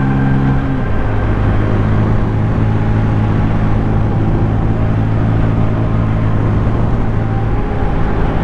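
Bajaj Pulsar N160 motorcycle's single-cylinder engine running at steady revs on the move, its pitch dropping a step about a second in, over a steady rush of noise.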